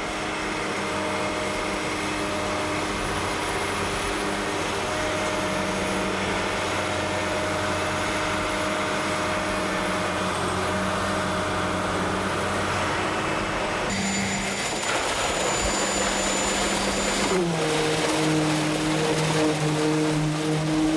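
Heavy construction machinery engine running with a steady hum. The sound changes abruptly about 14 seconds in, and a few seconds later the engine's pitch drops and holds lower.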